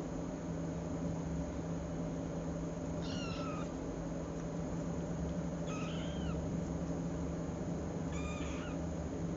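A kitten meowing three times, short high-pitched calls each rising then falling, a couple of seconds apart, over a steady low background hum.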